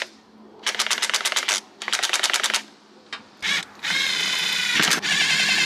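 Cordless impact wrench hammering lug nuts onto a wheel in several short bursts of rapid rattling, the last one longer.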